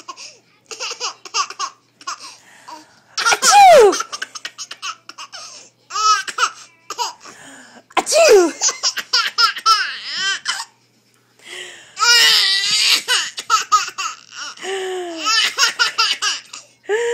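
A baby boy laughing in repeated fits, each burst a quick run of pulsing laughs, with short pauses between.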